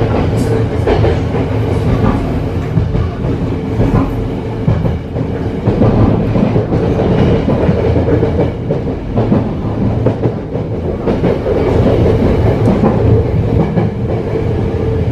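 Tokyo Metro 03 series electric commuter train running, heard from inside the passenger car: a steady rumble of wheels and running gear with a low hum, and scattered clacks as the wheels pass over rail joints.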